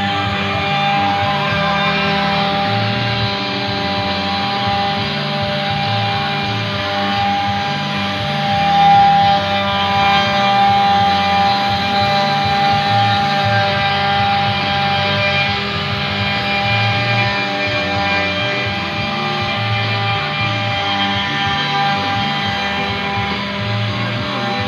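Background rock music with electric guitar.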